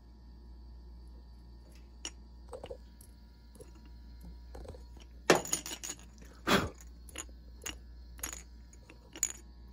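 Light metallic clinks and knocks from metal parts or tools being handled, spaced about a second apart, the loudest cluster about five seconds in, over a steady low hum.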